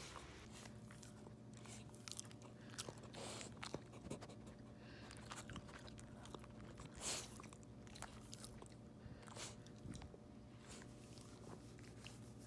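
A dog crunching and chewing hard food, a scatter of crisp bites and chews, the loudest about seven seconds in.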